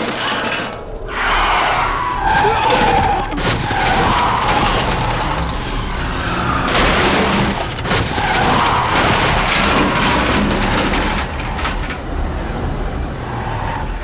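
Film soundtrack of a car accident: car noise, tyres skidding, glass shattering and crashing impacts, under dramatic background music.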